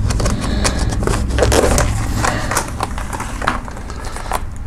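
Thin plastic takeout bag and clear plastic clamshell lid crinkling and crackling as they are handled and the lid is pulled off a food container, over a steady low hum.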